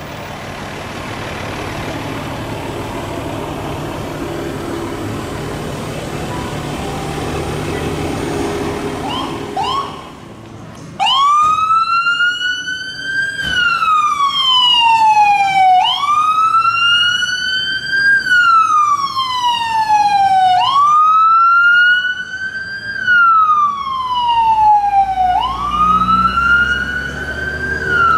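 Vehicle engine and road noise for the first ten seconds. Then, after a brief chirp, an emergency vehicle's siren starts up about eleven seconds in and wails, rising and falling in pitch about every five seconds.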